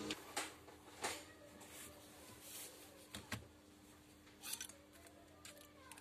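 Scattered light clicks and taps of small parts and tools being handled on an open MacBook Air, about five in all, over a faint steady hum.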